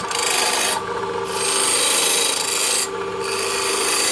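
Steel turning scraper cutting a spinning wooden disc on a lathe: a steady rasping hiss of the tool shaving the wood, which breaks off twice for about half a second as the tool is eased off, over the steady hum of the lathe motor.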